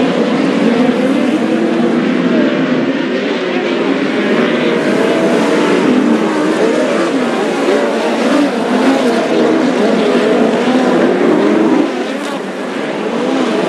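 Several sprint car engines racing together on a dirt oval. Their overlapping pitches rise and fall as the cars power through the turns, and the sound dips briefly about twelve seconds in.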